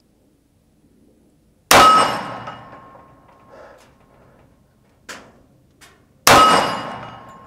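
Two slow, deliberate shots from a Springfield Armory Champion Operator .45 ACP pistol, about four and a half seconds apart, each a sharp crack followed by a ringing tail that fades over a second or more.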